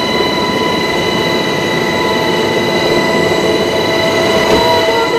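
Cabin noise inside a military transport helicopter in flight: a steady roar of engines and rotors with a constant high whine.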